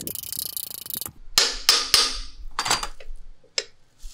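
Metal clicking and scraping as thin steel shim washers are pulled off the gearbox shaft of a Minsk 125 engine case with pliers, followed by a few louder scrapes and knocks as the aluminium case is handled.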